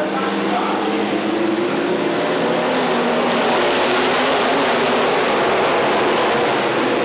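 A field of IMCA Northern SportMod dirt-track race cars at racing speed, their V8 engines running at full throttle. The sound swells a little about three seconds in as two cars pass close by.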